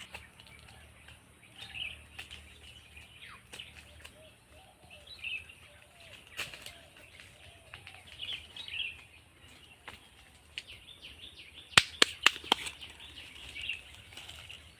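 Birds chirping in the woods, short calls repeating throughout. A quick cluster of sharp clicks comes near the end.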